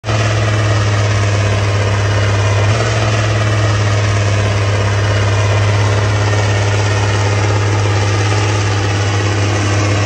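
Tractor diesel engine running steadily, a low even drone.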